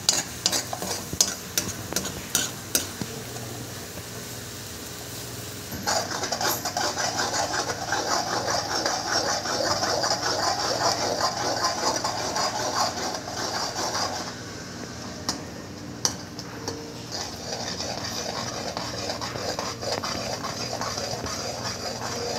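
A metal ladle stirring and scraping a tomato-and-onion masala as it fries in a metal kadhai. Sharp clicks of the ladle against the pan come in the first three seconds, then a dense scraping, sizzling texture from about six seconds in, easing off briefly about two-thirds of the way through.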